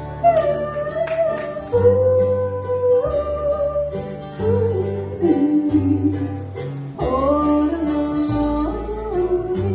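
Country band playing live: acoustic guitar and bass, with a held, sliding melody line on top.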